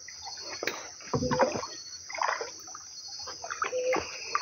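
Water splashing and sloshing against a canoe as it is worked by hand in shallow river water, in a few irregular bursts, with a steady insect hum behind.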